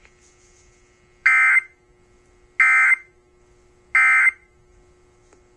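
Emergency Alert System end-of-message data signal: three short, harsh bursts of digital data tones, about a second and a half apart, marking the end of the alert. A faint steady hum runs underneath.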